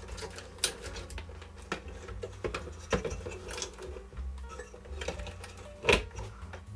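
A computer motherboard being set into a bare sheet-metal case and shuffled into place: scattered light clicks and scrapes of the board against the metal chassis, with one louder knock near the end.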